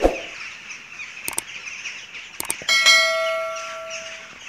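A single bright metallic ding about two and a half seconds in, ringing on and fading over about a second and a half. It comes after a dull thump at the start and a few sharp clicks, over a steady high hiss.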